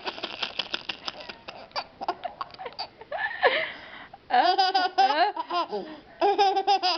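A baby boy laughing hard in a giggle fit at fake sneezes: bursts of quick, high-pitched pulsed laughter, with a short, louder vocal burst about three and a half seconds in.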